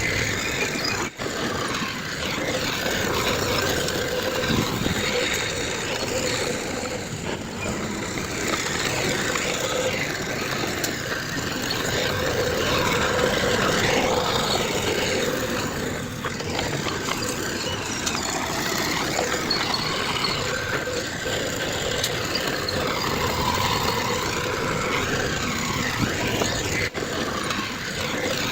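Heavy diesel engines of earthmoving machinery, bulldozer and dump trucks, running steadily, with two momentary dropouts about a second in and near the end.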